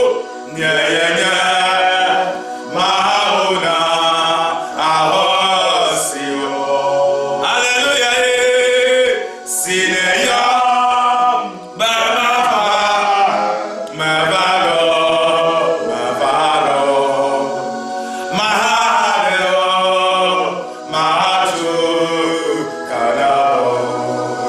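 A man singing a worship chant in phrases of about two seconds each, with brief breaks between them, over a low held musical tone.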